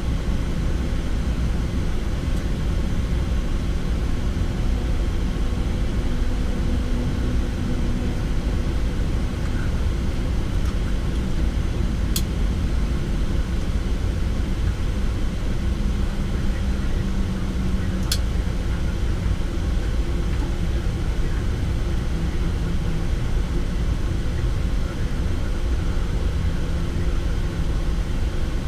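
Steady low rumble inside the cockpit of a Boeing 787 as it taxis. Two sharp clicks come about six seconds apart, near the middle.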